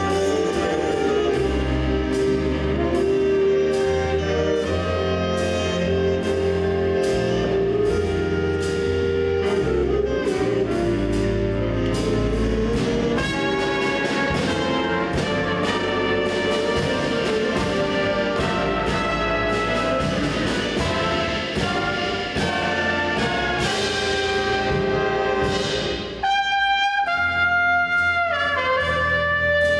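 A school band playing a brass-led piece with a steady beat, breaking off briefly about 26 seconds in and then carrying on.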